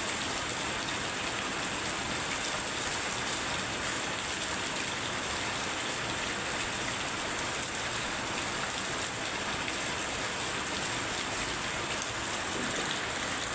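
Very heavy rain falling steadily: a dense, even hiss with faint scattered ticks of drops.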